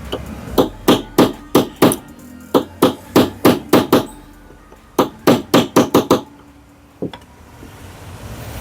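Light hammer taps on the metal retaining ring of a Preethi mixer grinder's motor bush, driving the ring home so the loose bush is held tight. About seventeen sharp taps come in three quick runs, with one last tap a second later.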